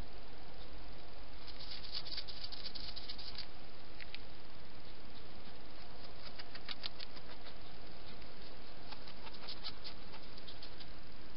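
Clusters of quick, faint clicking and pattering, several times, over a steady hiss: a wild European hedgehog moving about close to a night-vision garden camera.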